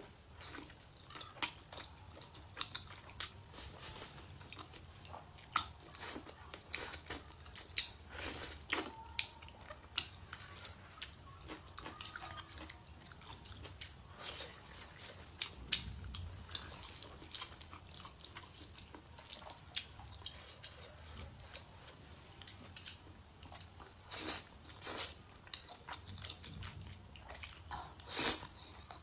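Close-miked eating of spicy stir-fried rice noodles: irregular wet chewing, lip smacks and sharp mouth clicks.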